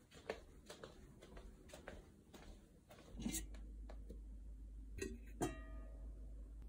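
Light footsteps tapping across a laminate floor. Then, over a low steady hum, metal cookware clinks as pot lids are handled, the last clink ringing on briefly.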